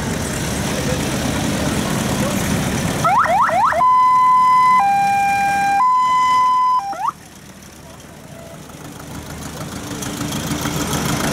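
Engine rumble, then an electronic siren: a few quick rising whoops followed by a two-tone high-low wail, which cuts off suddenly about seven seconds in, leaving a quieter engine rumble that slowly grows louder.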